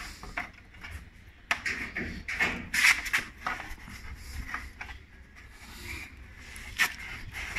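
Allen key knocking and scraping against a motorcycle's front fork and brake caliper: irregular sharp clicks and rubbing, loudest about three seconds in, with another sharp click near the end.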